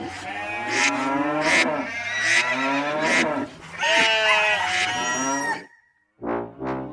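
Cattle mooing: several long, wavering calls that stop abruptly about a second before the end, followed by the first notes of a brass-led song intro.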